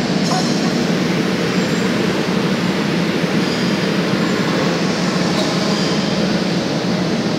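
Steady mechanical rumble with a low hum, unchanging throughout and with no distinct knocks or events.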